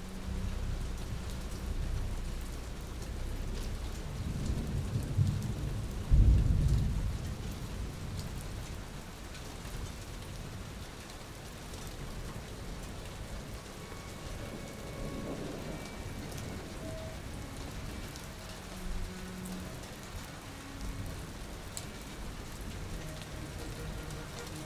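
Steady rain with thunder: a low rumble builds about four seconds in, then a loud thunderclap hits about two seconds later and rolls away.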